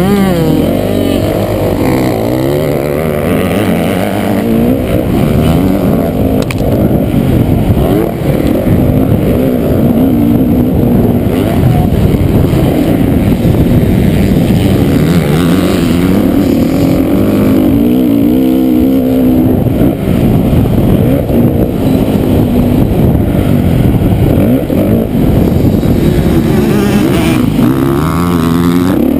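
Motocross bike engine at race pace, heard close up from the rider's helmet camera, revving up and falling back again and again as the rider accelerates, shifts and rolls off through the track's corners and straights.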